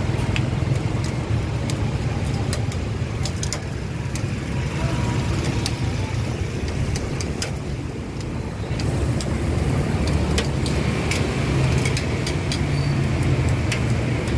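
Busy roadside ambience: a steady low rumble of passing traffic, with frequent short, sharp clicks and clatters scattered throughout.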